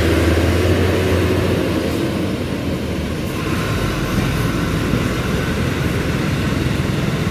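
Large intercity coach's diesel engine running as the bus drives past over a rough, damaged road, with tyre and body noise. The engine hum is loudest in the first second or two.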